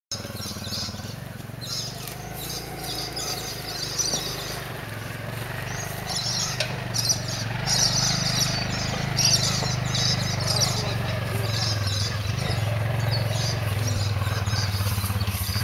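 Honda Africa Twin motorcycle engine labouring up a steep hill, a steady drone that grows louder as it approaches. Birds chirp repeatedly over it.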